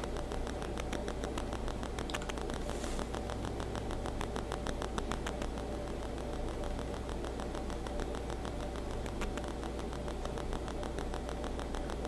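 Room tone: a steady low hum with faint, evenly spaced ticking, about four or five ticks a second.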